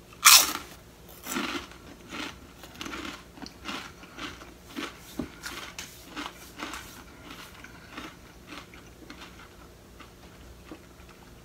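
A crunchy chip being bitten and chewed close to the microphone: one loud crunch at the start, then a run of smaller crisp crunches that grow fainter and sparser.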